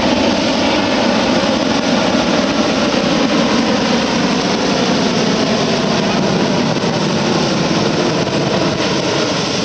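Hot-air balloon propane burner firing in one long continuous blast, a loud steady rushing noise that starts abruptly, heating the air in the envelope.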